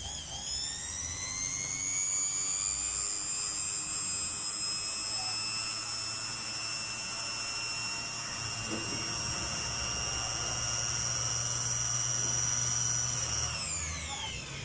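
Mixer grinder's motor running at full speed with a high whine that climbs in pitch as it spins up, holds steady, then falls away as it is switched off near the end.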